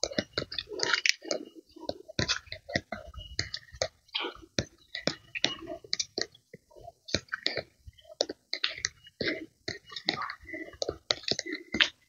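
Footsteps crunching and scuffing on dry leaf litter and a dirt path, an irregular run of short crackles and scrapes.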